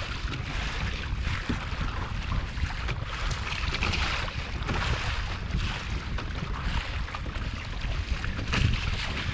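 Wind buffeting the microphone in a constant low rumble, with choppy sea water splashing and sloshing against a kayak's hull in uneven surges.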